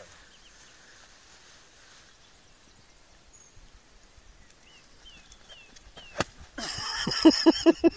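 A golf club strikes a ball off fairway grass with one sharp click about six seconds in. A loud burst of laughter follows at once, in quick rhythmic pulses. A few faint short bird chirps come before the shot.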